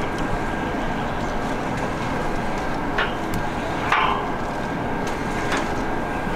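Steady background hubbub and hiss with a faint high steady tone, broken by a few sharp knocks: about three seconds in, a louder one with a short ring about a second later, and another about five and a half seconds in.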